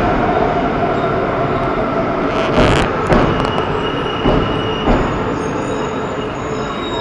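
JR East E4 Series Max double-decker Shinkansen braking slowly into a platform: a steady rumble of wheels on rail with a few sharp knocks. A thin high squeal sets in about three seconds in and returns near the end.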